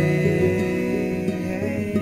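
Acoustic folk music in an instrumental passage: a chord held and ringing steadily, with no singing.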